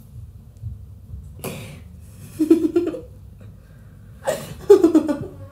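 A girl giggling in three short breathy bursts, the last about four seconds in the loudest.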